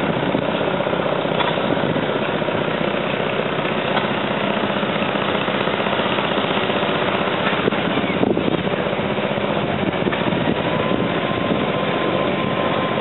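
An engine running steadily, a dense, rapid mechanical rattle with no change in speed; a thin steady whine joins in near the end.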